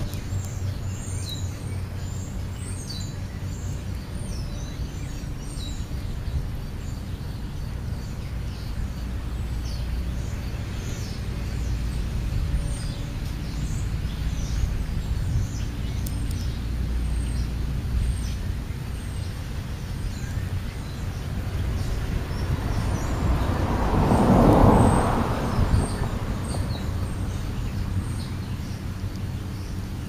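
Outdoor ambience: birds chirping here and there over a steady low rumble, with a louder rushing swell about twenty-four seconds in.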